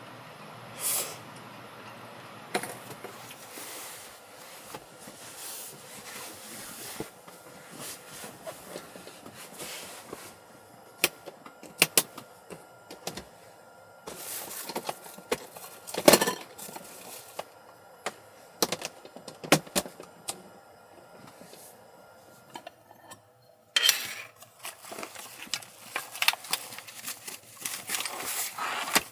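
Handling sounds: scattered sharp clicks and light clinks with short bursts of rustling, busiest over the last five seconds.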